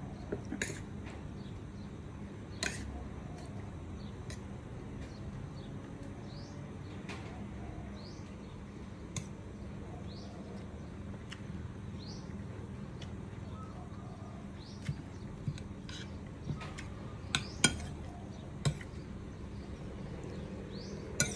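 Spoon and fork clinking and scraping against a ceramic plate of rice while eating: a dozen or so short, sharp clinks, scattered at first and coming more often in the last few seconds, over a steady low hum.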